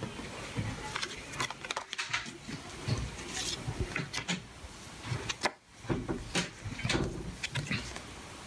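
Cardboard packaging and paper inserts being handled on a wooden tabletop: irregular rustles, light taps and small knocks as a box tray and cards are slid about and picked up.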